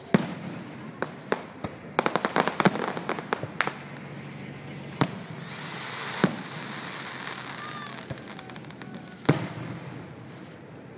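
Aerial fireworks bursting: a sharp bang right at the start, a rapid string of pops about two seconds in, then single bangs spaced a few seconds apart. A hissing crackle runs through the middle, and a louder bang comes near the end.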